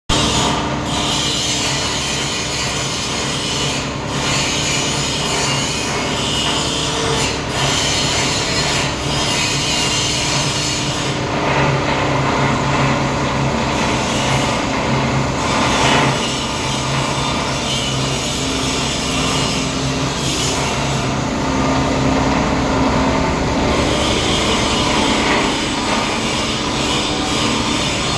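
Plastic granulator running and grinding polypropylene (PP) film: a steady motor hum under a dense, continuous rasping churn of shredded plastic.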